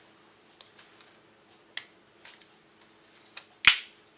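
Metal clicks of a Victorinox SwissChamp Swiss Army knife's tools being handled: several light clicks, then one loud snap near the end.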